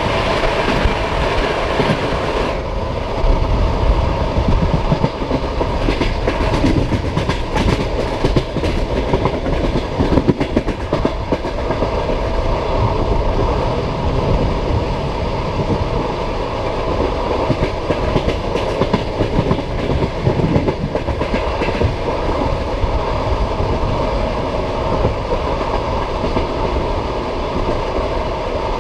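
Passenger train carriage wheels clattering over the rail joints with a steady rumble, heard from the carriage window. A run of sharper clicks comes between about six and eleven seconds in.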